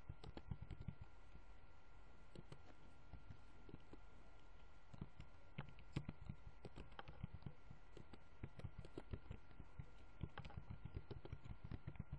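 Computer keyboard keys being typed on in irregular bursts of faint clicks with short pauses between words, over a faint steady high-pitched whine.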